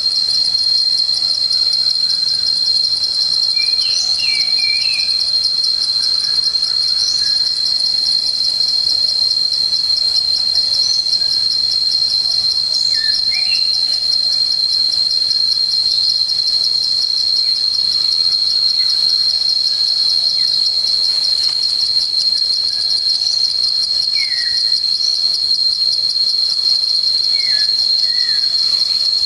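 A steady, high-pitched insect trill with a fast even pulse, with a handful of short bird chirps scattered over it.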